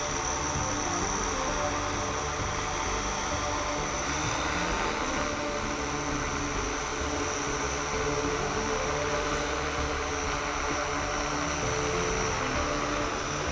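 Quadcopter drone flying overhead, its propellers giving a steady buzzing whine.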